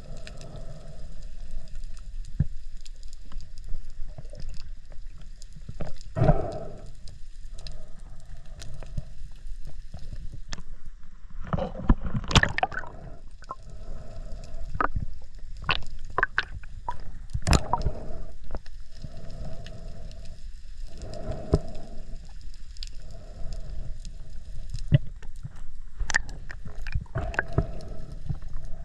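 Muffled underwater sound picked up by a submerged camera: a steady low rumble of moving water, with recurring hollow swells and scattered sharp clicks and pops.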